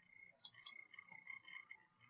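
Two quick computer mouse clicks about half a second in, placing points with Photoshop's polygonal lasso tool, over a faint steady high-pitched background tone.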